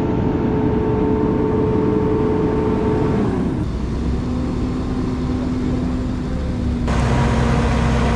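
Heavy truck diesel engine running under load at raised revs, its pitch held steady and then dropping about three seconds in to a lower, steady note.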